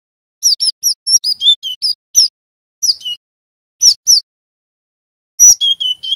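Cinereous tit (glatik batu) calling: quick runs of short, high, down-slurred whistled notes, two to eight at a time with short pauses between. A single knock sounds about five and a half seconds in.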